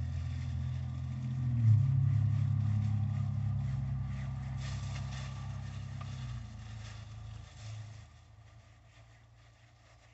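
A motor vehicle's engine running nearby, a steady low hum that swells about two seconds in and then fades away over the last few seconds.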